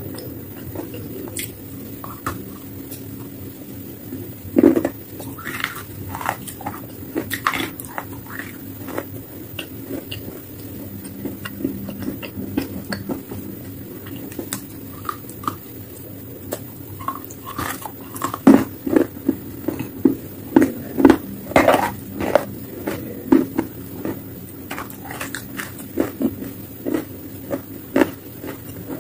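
Pieces of wet chalk coated in paste being bitten and chewed: sharp crunches and cracks, one loud bite about five seconds in and a fast run of crunching through the second half.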